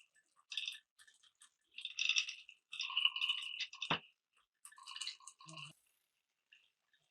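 Glass marbles rolling and clattering through wooden Cuboro marble-run blocks in several short runs of rattling, with brief ringing rolls and one sharp click about four seconds in.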